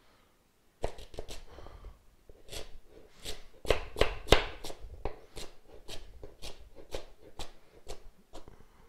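Chef's knife chopping carrots into rounds on a cutting board: a run of sharp knocks of the blade through the carrot onto the board, starting about a second in and going on at roughly two chops a second.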